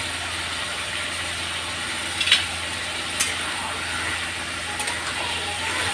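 Marinated chicken sizzling steadily in an aluminium kadai, with a metal spatula knocking against the pan twice, a little over two and three seconds in, as it is stirred.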